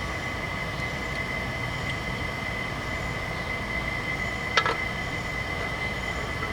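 Steady background hum with a thin high whine. About two-thirds of the way through comes a single sharp metallic clink with a brief ring as the steel crossbar bolt is tried in the hydraulic floor jack's saddle hole.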